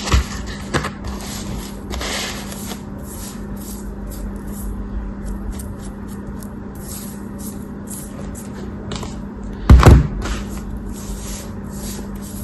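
A blade cutting and scraping through soft crumbly material in a run of short, crisp, hissy strokes, with a few sharp knocks, the loudest about ten seconds in.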